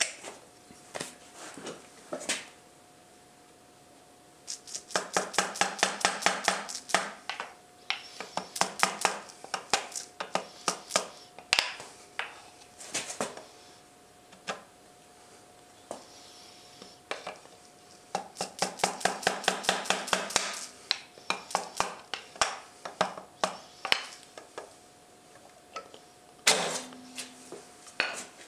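Light taps of a wooden hammer end on the aluminium cylinder block of a Honda CBR1000F Hurricane engine, scattered single taps and two quick runs of about ten taps a second. The block is being gently tapped down to unwedge a piston so that it seats over the pistons.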